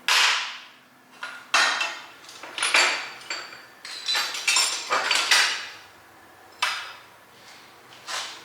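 Metal hex-bit (Allen) sockets clinking and clattering against one another while the right size is sought: a string of sharp, ringing metal knocks at irregular intervals, the loudest right at the start.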